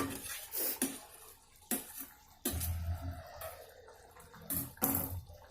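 Metal cookware being handled: a series of clinks, knocks and scrapes, about six in a few seconds.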